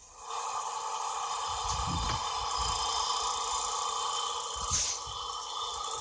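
Homemade motorised sieve shaker switched on: its small motor and the hanging round mesh sieve run with a steady hum and rattle from just after the start, with a couple of low knocks and a short hiss about five seconds in.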